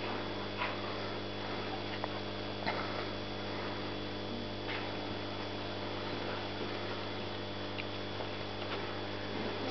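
Steady electrical mains hum with a stack of even overtones, over a few faint clicks and rustles.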